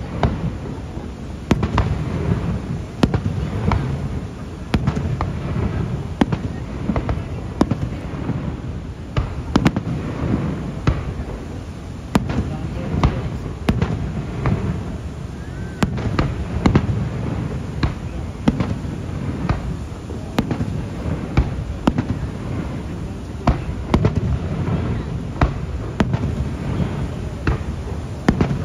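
Fireworks display: aerial shells bursting in an irregular run of sharp bangs, one or two a second, over a steady low background noise.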